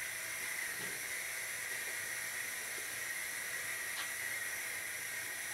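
A steady, even hiss with no change in level, and a faint click about four seconds in.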